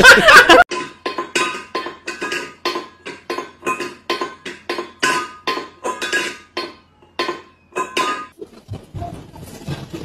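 A brief burst of laughter and talk cuts off, then a small hard object is struck over and over, about three sharp clinks a second, each with a short metallic ring, stopping about two seconds before the end.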